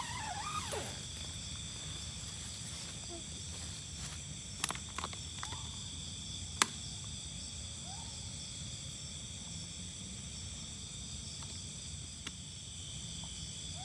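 Night chorus of crickets and other insects: steady high trilling in several pitches at once over a low steady rumble, broken by a few sharp clicks, the loudest about six and a half seconds in.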